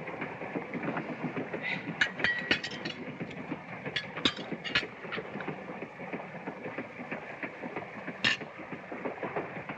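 Running noise of a moving railway dining car: a steady rumble and clatter with many small clicks, and a few short sharp sounds about 2, 4 to 5 and 8 seconds in.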